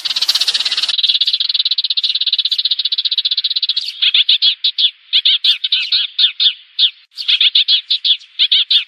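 Sparrow calls played as a trapping lure. A fast, even buzzing trill runs for the first few seconds, then gives way to rapid runs of sharp chirps, with a short break about seven seconds in.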